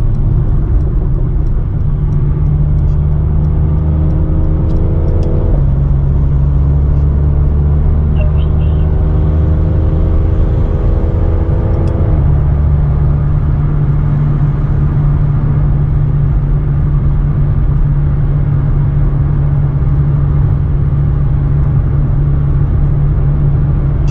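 Tuned Mercedes-AMG C43's twin-turbo V6 and aftermarket-tuned exhaust accelerating, its note rising in pitch through two gears with sharp drops at the upshifts about five and twelve seconds in, then settling into a steady low drone at cruise.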